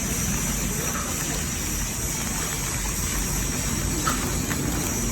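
Steady rumble and hiss with no horn sounding.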